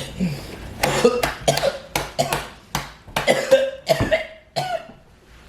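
A person coughing hard in a long fit of about a dozen harsh coughs that stops short near the end: smoker's coughing from hitting a blunt.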